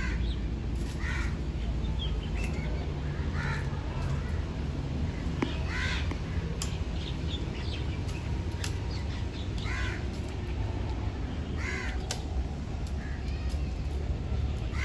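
A bird calling with short caws, about seven of them at irregular intervals of one to four seconds, over a steady low rumble.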